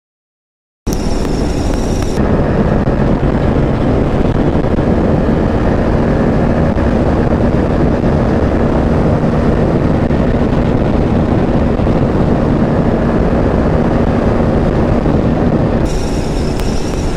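Steady rush of wind on the microphone of a 160 cc single-cylinder motorcycle held at high speed, with the engine's drone faintly underneath at a constant pitch. It cuts in abruptly about a second in, after a moment of silence.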